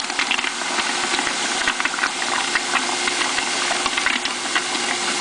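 Scott Turbon disperser mixer running at just over half speed, its shaft churning palm oil in a plastic bucket. A steady motor hum sits under a dense hiss and fine crackle from the stirred liquid.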